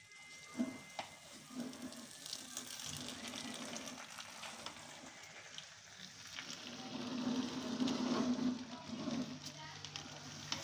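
A spatula stirring and turning cooked rice in a pot: irregular scraping against the pan, with a few light knocks.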